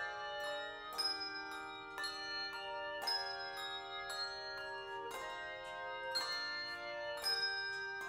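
Handbell choir ringing chords, a new chord struck about once a second with several bells sounding together and ringing on between strikes.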